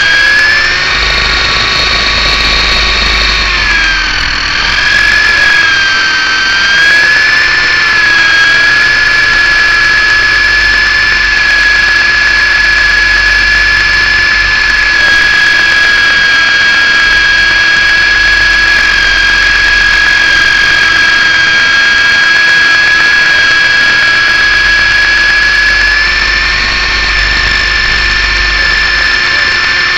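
MJX F645 radio-controlled helicopter's electric drive and rotor running with a loud, high-pitched whine. The pitch wavers up and down a few times in the first several seconds, then holds steady and rises slightly near the end.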